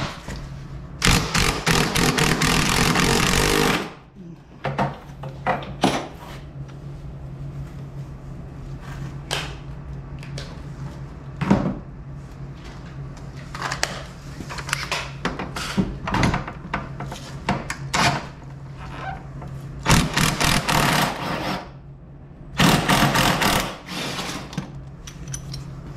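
Cordless impact driver hammering in bursts as it backs out a snowmobile's rear skid mounting bolts. One long run of about three seconds about a second in, then two shorter runs near the end, with scattered clanks of tools on metal between.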